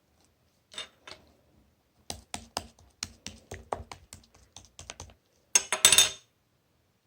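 Slime being pressed and poked by hand, making sharp clicky pops, a steady run of about five a second, ending in a louder dense crackle near the end.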